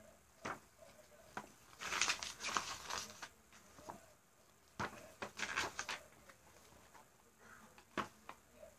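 A DVD box set and its case being handled and opened by hand: a few single sharp clicks and taps, with two longer spells of rustling and scraping.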